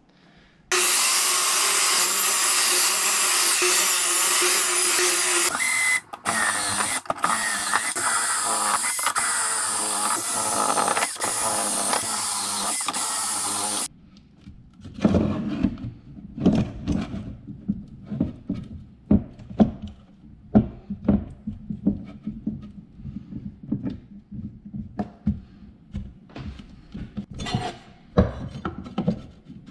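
A power tool runs loudly and steadily for about thirteen seconds, breaking off briefly twice midway, then stops abruptly. After that come irregular knocks and clatter of 2x4 pieces being handled and clamped on a wooden workbench.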